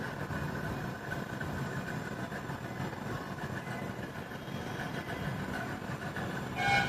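A steady machine hum, like a motor or engine running, with a brief higher-pitched sound near the end.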